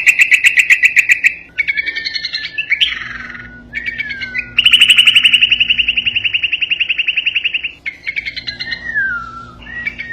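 Bulbul singing: fast trills of rapidly repeated notes alternating with slurred phrases that fall in pitch, including one long trill of about three seconds near the middle.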